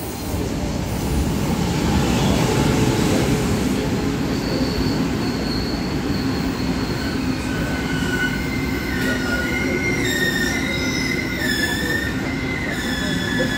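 Taiwan Railway E1000 push-pull Tze-Chiang express train running through the station, with a steady heavy rumble of wheels on rail. From about four seconds in, high wavering wheel squeal rides over the rumble.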